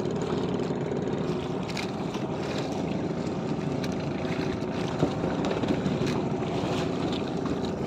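Outrigger fishing boat's engine running steadily, mixed with wind and sea noise, with a few short knocks or splashes.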